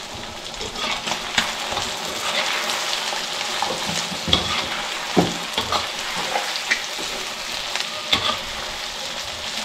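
Chicken frying in hot oil in a kadhai, with turmeric and red chili powder just added, sizzling and crackling steadily. A metal slotted spatula stirs through it, with a few sharper scrapes against the pan.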